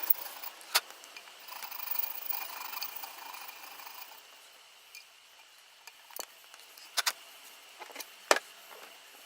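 Small round file rasping back and forth in a steel swing arm's rear-shock mounting hole, taking off excess paint, for about the first four seconds. Then a few sharp clicks and taps of metal, the loudest about eight seconds in.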